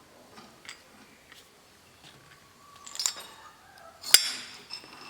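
Small metal engine parts from a chainsaw's replacement piston-and-cylinder kit being handled, with light ticks and clinks, and one sharp metallic clink that rings on briefly about four seconds in.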